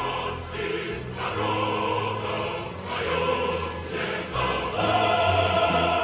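Background choral music: a choir singing held chords that change every second or so.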